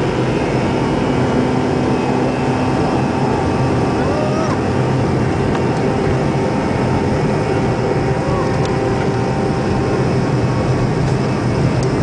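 Steady cabin noise of an MD-83 accelerating down the runway on its takeoff roll, its two rear-mounted Pratt & Whitney JT8D turbofans at takeoff power.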